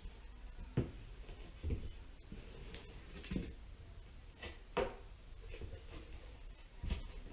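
A piece of drywall being handled and test-fitted into a wall opening: about five knocks against the countertop and wall, with scraping and rubbing between them.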